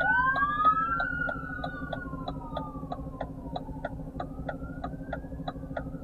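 Police car sirens wailing, two overlapping tones rising and falling, loudest in the first second or so and then easing off as they pass. A steady ticking about three times a second runs under them.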